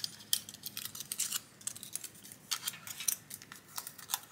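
Aluminium foil crinkling and crackling between the fingers as it is folded and pressed around circuit-board components, masking them against hot-air heat. Irregular quick crackles, with a quieter spell about a second and a half in.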